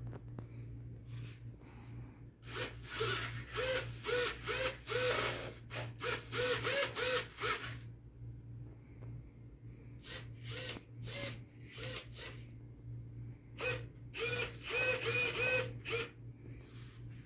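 Small RC servos on a 3D-printed Ju-87 Stuka model driving its control surfaces back and forth, each stroke a short whine that rises and falls in pitch, in quick runs of about two strokes a second, with a few single clicks between the runs. A steady low hum runs underneath.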